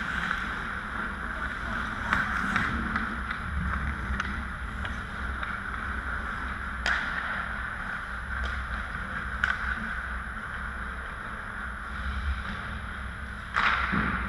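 Ice hockey play on an indoor rink: a steady scrape and hiss of skates on the ice with scattered sharp clacks of sticks and puck, over a low hum, and a louder knock near the end.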